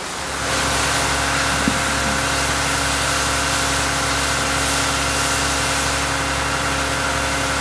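A fire truck's engine running steadily to drive its pump, under the hiss of water spraying from a fire hose nozzle. Both come in about half a second in and hold even.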